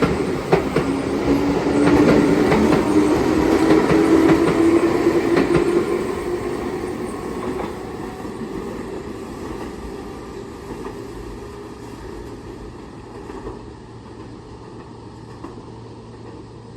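Keihan 6000 series electric train pulling away and accelerating, its wheels clacking over rail joints. A traction-motor whine rises in pitch over the first few seconds, then the train's sound fades steadily as it moves off.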